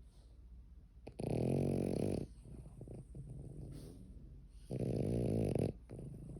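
Loud snoring: two long snores, the first about a second in and the second near five seconds in, each lasting about a second, with quieter snoring breaths between.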